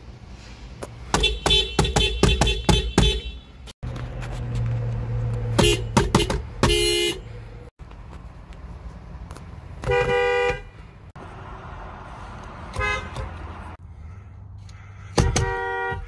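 Horns of several Japanese cars, a Honda and a Toyota among them, sounded one car after another. There is a quick run of short toots near the start, then two short blasts, a longer honk of about half a second, a brief tap, and another honk near the end.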